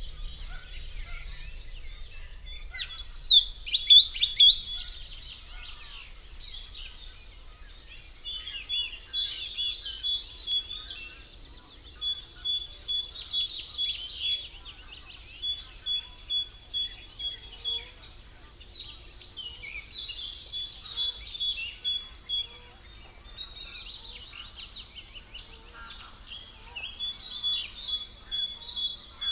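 Several songbirds singing. A loud burst of song comes about three seconds in, then one bird repeats a high two-note phrase in runs of two or three seconds with short pauses between, over fainter twittering.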